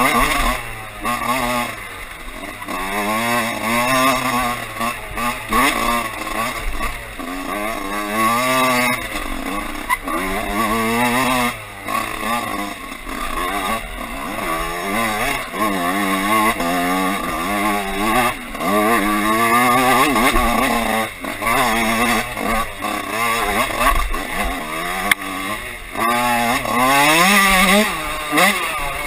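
Dirt bike engine, heard from on board, revving up and down over and over as the rider opens and closes the throttle and shifts through the gears, the pitch climbing and falling every second or two.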